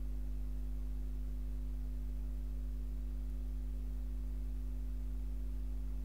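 Steady low hum with several fainter higher tones above it, unchanging; nothing else stands out.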